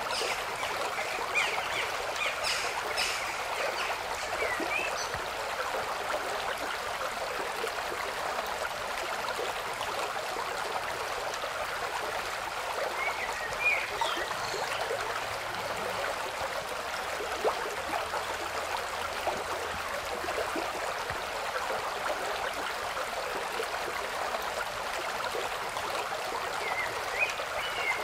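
Steady rushing noise of running water, with a few brief high chirps now and then.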